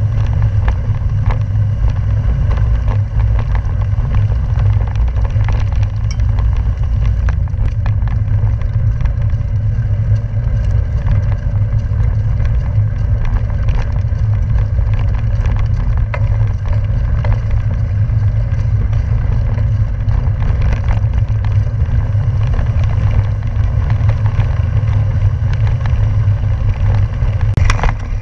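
Loud, steady wind rumble on the microphone of a camera riding on a gravel bike moving fast, with a fainter hiss of tyres over rough pavement and small scattered clicks.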